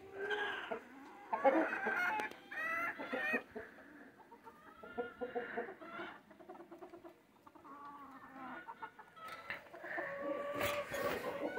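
Chickens clucking and calling, a run of loud calls from about a second and a half in, quieter clucks through the middle, and a longer held call near the end.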